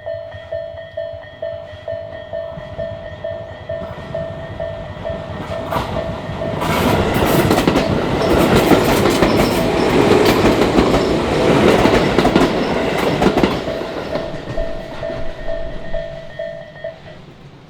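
Japanese level-crossing warning bell ringing in a steady 'kan-kan' beat about twice a second while an electric train of the Tobu Ogose Line passes over the crossing. The train's noise, with wheels clattering over the rail joints, swells up about six seconds in and fades after about seven seconds, and the bell stops near the end.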